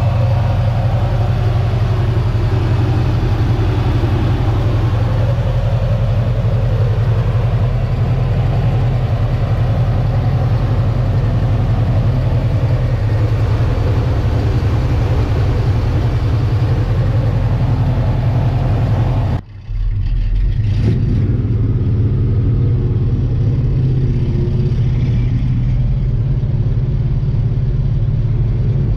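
Carbureted V8 of a 1978 farm truck running at a steady idle, with a brief dropout about two-thirds of the way through.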